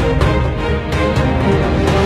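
Background music: sustained instrumental tones over a steady drum beat.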